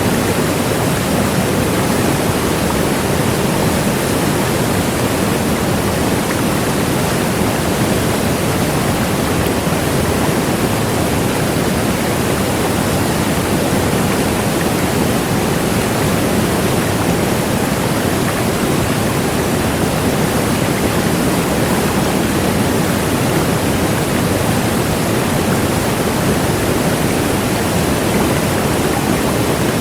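Large waterfall: a steady, unbroken rush of falling water, strongest in the low and middle range.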